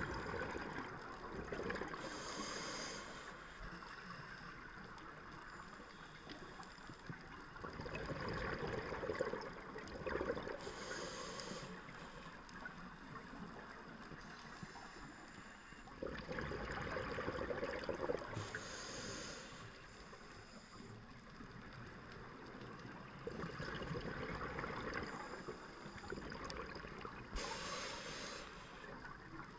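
Scuba diver breathing through a regulator: a sharp hiss on each inhalation and a rush of exhaled bubbles, one full breath about every eight seconds, muffled by the sealed camera housing.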